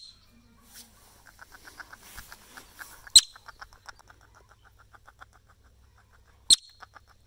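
A groundhog (woodchuck) gives two short, sharp, high-pitched chirping whistles about three seconds apart, the agitated call of an animal standing its ground at a fence.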